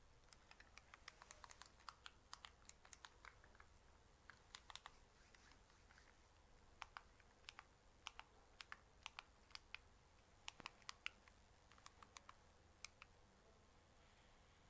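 Near silence, with faint, irregular sharp clicks scattered throughout.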